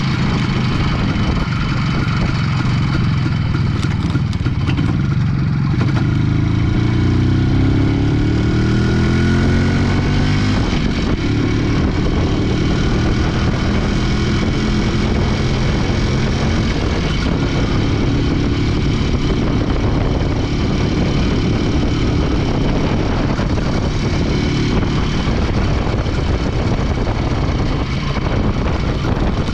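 Izh Planeta 4 motorcycle's single-cylinder two-stroke engine running. Its pitch climbs steadily from about six to ten seconds in, drops back, then holds steady for the rest.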